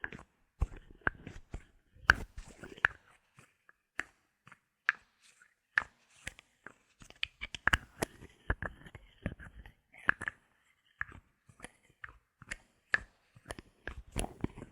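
Bottle caps handled close to the microphone: irregular crisp clicks and taps, bunched in quick clusters with short pauses between.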